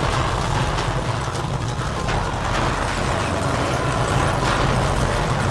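Earthquake shaking an office building: a loud, steady rumble that starts suddenly, with scattered clatters and rattles from the shaking room.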